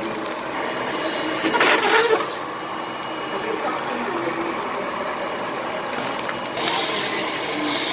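Horizontal degassing band sealer running with a steady mechanical hum, and a louder burst of hissing noise about a second and a half in.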